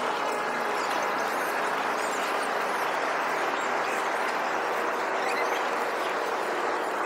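Outdoor ambience played back fast-forward at five times speed: a steady hiss scattered with quick, squeaky high chirps from birdsong.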